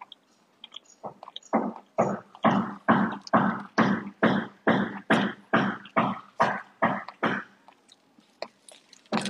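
Rapid, regular hammering from building work, about three blows a second, with a short pause near the end.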